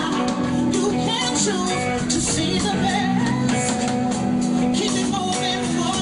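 A live band playing with a singer, recorded in the venue on a phone.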